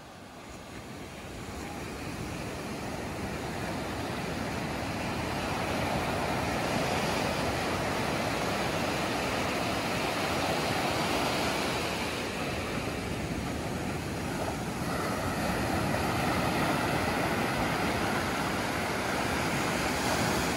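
Surf breaking and washing up a sandy beach, a steady rushing that swells and eases. It fades in over the first few seconds.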